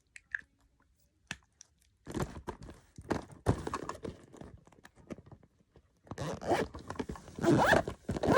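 Small items and packaging being handled and packed into a box: irregular rustling, scraping and light knocks, sparse at first and louder and busier from about six seconds in.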